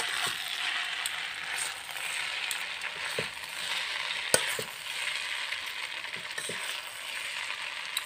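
Egg chow mein noodles being stirred and tossed in a steel kadai with a spoon and hands: a steady hiss with soft stirring, and the spoon clinking against the pan a few times, most sharply about four and a half seconds in.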